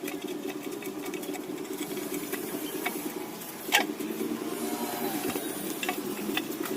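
A small motor running steadily with a fast rhythmic chatter. A single sharp click comes about four seconds in.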